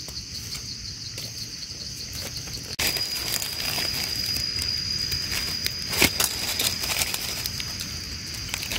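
Insects singing in a steady high-pitched chorus. About three seconds in the sound changes abruptly to one steady high tone, and a single sharp snap sounds about six seconds in.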